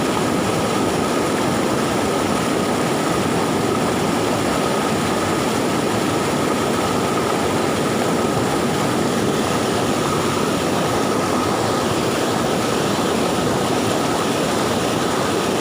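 Swollen floodwater river rushing fast in a steady, unbroken roar, with a faint thin tone held above it.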